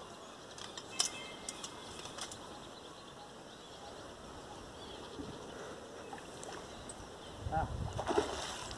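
A hooked bighead carp splashing at the water's surface near the end, a short burst of thrashing water. A single sharp click comes about a second in.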